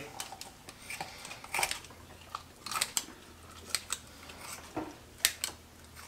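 Chicken shears snipping through a raw whole chicken along its backbone to spatchcock it: a string of short, sharp, irregularly spaced cuts.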